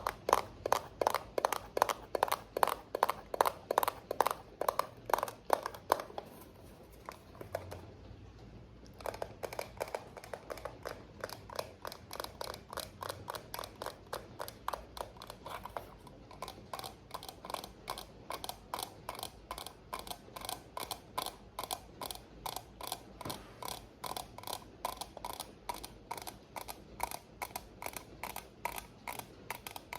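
ASMR tapping: quick, even taps at about three or four a second, loud at first. After a short pause a few seconds in they go on softer.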